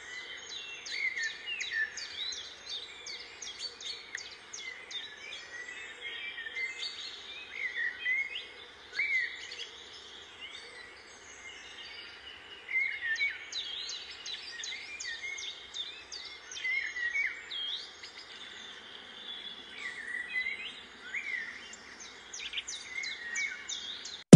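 Small birds chirping and twittering in a steady stream of short, quick calls, thinning briefly about ten seconds in.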